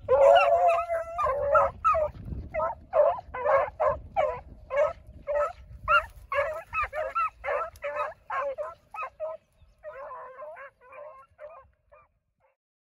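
Beagles baying over and over while running a rabbit track, the cries crowded together at first and then about two a second, growing fainter and dying out near the end.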